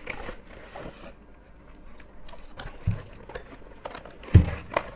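Clicks and light knocks of hard plastic drone accessories being handled, with a dull thump about four seconds in.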